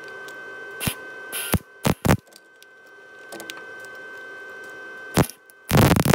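Welding arc crackling as a washer is welded onto a broken exhaust manifold stud to get a grip for extracting it. There are a few brief sharp crackles, then a loud burst of crackle lasting about half a second near the end, over a faint steady high tone.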